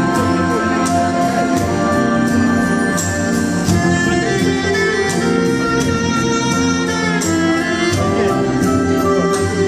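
Waltz music playing steadily.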